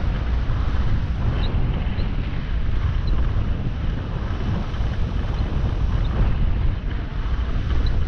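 Wind rushing over the microphone of a camera riding on a moving bicycle: a steady low rumble with hiss above it.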